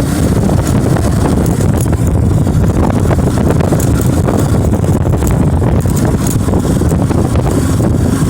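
Bajaj Boxer motorcycle's engine running steadily under way, with wind buffeting the microphone.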